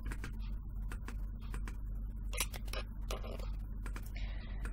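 Rapid light clicking, several small ticks a second, over a steady low hum.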